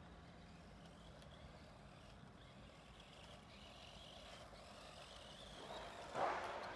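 Electric motor of a 1/18-scale RC mini monster truck whining faintly, its pitch wavering as it speeds around a dirt lot, with a brief louder rush of noise near the end.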